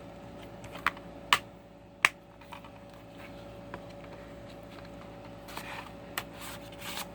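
A plastic DVD case and its contents being handled: three sharp clicks about one to two seconds in, then softer ticks and rustling near the end.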